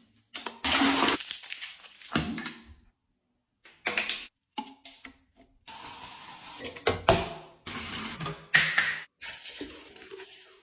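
Food containers and packages being handled and set down: a run of short rustles, knocks and clicks, broken by brief silences.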